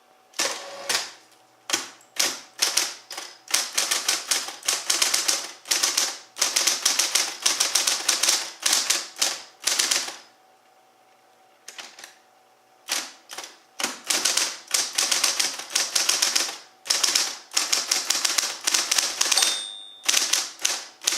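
Smith Corona Coronet Super 12 electric typewriter being typed on in quick, continuous runs of key strikes, with a pause of about two seconds midway, over its motor's faint steady hum. A short bell ding sounds once near the end.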